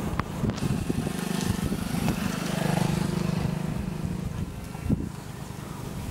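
A motor vehicle passing, its low engine hum swelling to a peak about three seconds in and then fading, with a sharp knock near the end.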